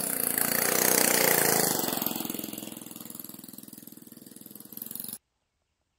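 Mini ATV's Honda GX200 single-cylinder four-stroke engine running as the ATV drives past. It is loudest about a second in, then fades as it moves away, and cuts off suddenly about five seconds in.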